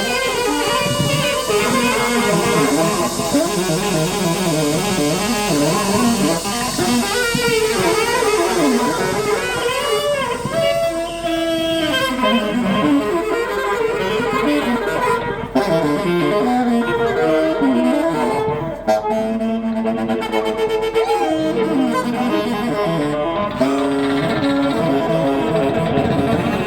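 Instrumental music playing steadily.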